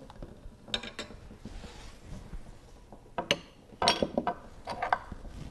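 Utensils clicking and clinking against bowls as vegetables and mushrooms are served into a bowl of noodle soup: several short, sharp taps at uneven intervals.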